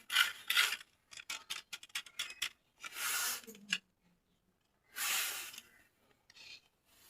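Toy packaging being handled close up: a run of quick crinkles and clicks, then two longer rubbing swishes.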